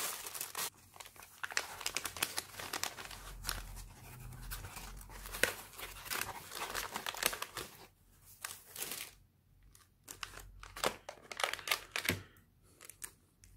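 Paper packaging being torn open and unwrapped by hand, crinkling and crackling irregularly, with a couple of short quieter pauses in the second half as small plastic bags are handled.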